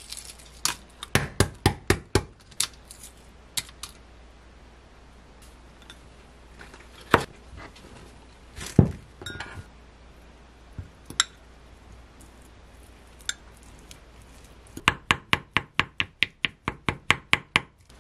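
Boiled eggs being peeled, then mashed with a fork in a glass mug. The fork clinks against the glass in runs of quick taps, about five a second near the end.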